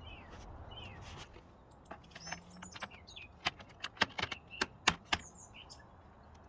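Hard plastic clicks and taps as plastic cover pieces are pressed back onto a pressure washer's housing by hand, a quick run of sharp separate clicks through the middle. Small birds chirp faintly.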